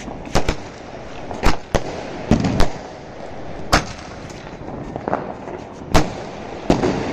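Aerial fireworks going off: about nine sharp bangs at uneven gaps over a constant crackle and hiss.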